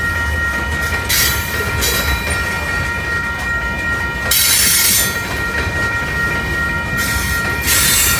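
Freight train of covered hopper cars rolling past a grade crossing: a steady low rumble of wheels on rail with a high ringing tone underneath. Three surges of wheel clatter and hiss come about 1, 4½ and 7 seconds in.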